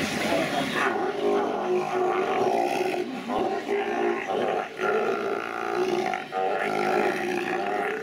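Sea lions calling with low, rasping, pitched calls that sound like farts, one after another almost without a break.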